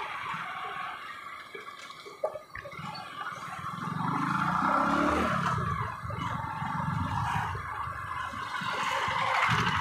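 Motorcycle running on the move, with wind rushing over the microphone; the low engine note swells and glides up and down about halfway through, and there is one short knock about two seconds in.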